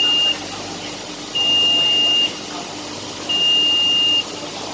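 Control-panel alarm buzzer sounding a steady high-pitched beep, about one second on and one second off, three times. It signals a transformer trip with the lockout relay operated; the transformer tripped on its pressure relief.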